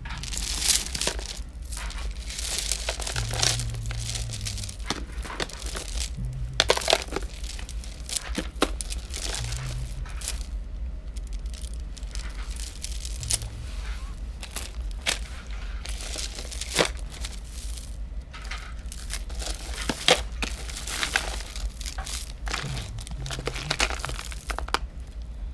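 Old beaded necklaces and jewelry being handled and sorted: rustling with many irregular sharp clicks of beads and clasps, over a steady low hum.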